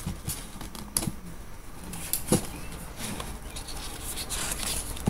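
Pages of a paper catalog being handled and turned: soft rustles with a couple of light taps.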